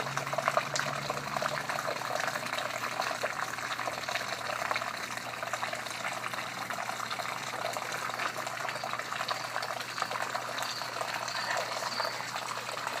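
Small water cascade of a miniature nativity-scene waterfall, water splashing and trickling steadily.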